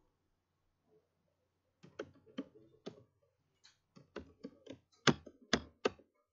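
Typing on a computer keyboard: about a dozen separate keystroke clicks in an uneven run, the last few the loudest.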